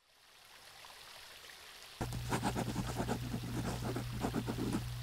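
Rushing, splashing water of a river weir, faint as it fades in, then louder from about two seconds in, with a steady low hum underneath.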